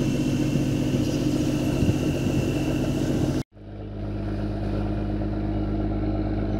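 Fishing boat's engine running steadily under way, a low hum of several steady tones with wind and water hiss over it. It breaks off for a moment about halfway through and comes back duller, with less hiss.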